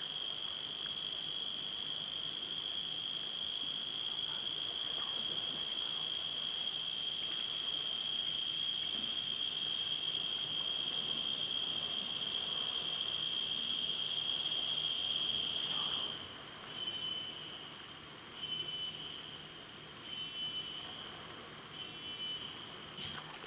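Rainforest insect whine: a high, steady tone with overtones. About two-thirds of the way in it breaks into loud swelling-and-fading pulses, roughly every one and a half to two seconds.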